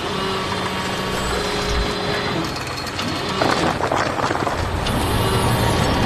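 Cartoon construction-machine sound effects: a steady mechanical whirr, then a burst of rapid ratcheting clatter a little past halfway, then a low engine hum coming in near the end.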